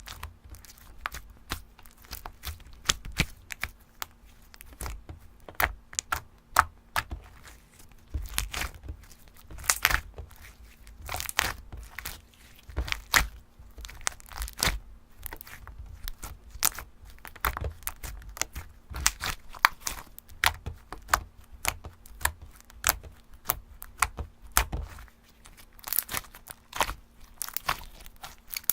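Slime being squished and stretched by hand, giving dense, irregular pops and crackling clicks, several a second, over a faint steady hum.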